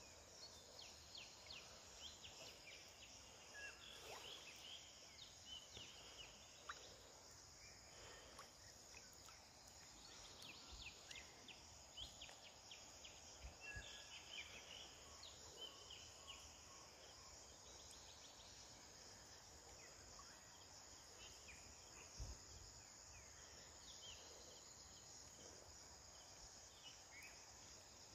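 Near silence: a faint, steady high-pitched insect drone, with scattered faint ticks and chirps.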